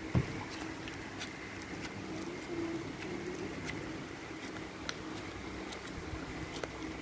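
Blue glitter slime being pressed and poked with a finger, giving scattered faint sticky clicks over a steady room hum, with a single thump about a quarter second in.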